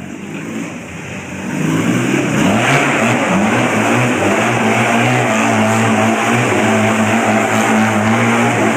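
Barossa Apache 250 cc engine revving up about a second and a half in, then running at a steady, raised speed.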